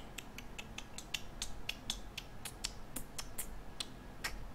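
Computer keyboard keys clicking in quick, irregular succession, several light clicks a second, some louder than others.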